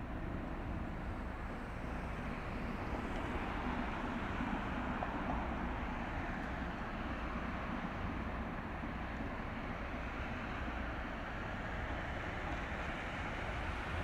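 Container ship passing, its engine a steady low drone under an even rushing background noise.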